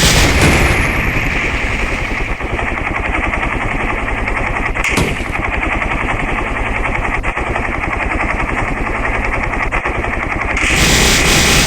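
Helicopter rotor chop: a steady, rapid beating of the blades over a deep rumble, with one sharp crack about five seconds in.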